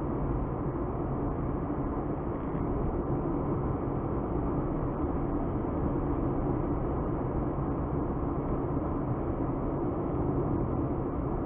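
Car being driven along a road: a steady mix of tyre and road noise with a low engine drone, with no sudden events.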